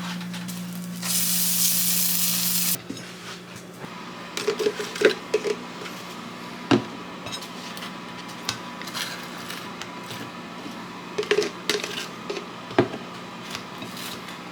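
Kitchen sounds: a loud hiss for about two seconds near the start, then scattered clinks and clatters of dishes and utensils over a steady low hum.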